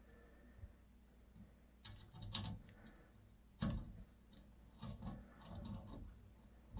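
Follow-focus motor bracket and its thumb screw being handled and tightened onto the gimbal: a scattering of sharp clicks and light knocks, the loudest a little past halfway.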